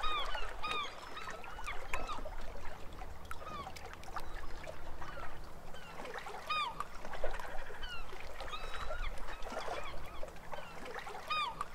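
Birds calling: many short, hooked chirps repeated throughout, over a faint low rumble.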